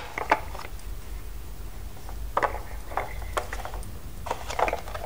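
Hard plastic toy parts being handled: scattered light clicks and knocks, in small clusters.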